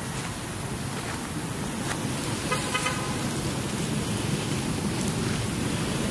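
Steady low outdoor rumble, with a brief, rapidly pulsed horn-like toot about two and a half seconds in.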